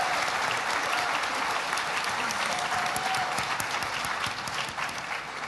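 Audience applauding, the clapping slowly dying away towards the end.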